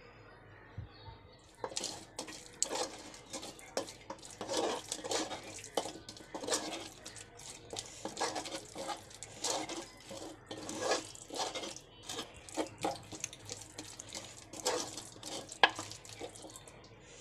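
A metal spoon stirring and mashing a wet, oily jolpai (Indian olive) mixture in a wooden mortar: irregular wet scraping strokes starting about a second and a half in, with one sharper knock near the end.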